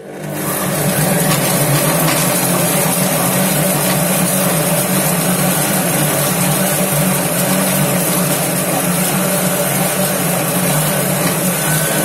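Cecotec Mambo kitchen robot running its blade at speed 8, mixing chopped chicken breast with mozzarella and breadcrumbs. The motor whir comes up to speed in the first second, then runs loud and steady.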